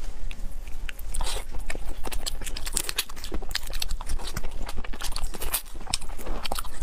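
Close-miked eating sounds: cooked shrimp shells crackling as they are peeled by hand, mixed with wet chewing, in a dense, uneven run of sharp clicks.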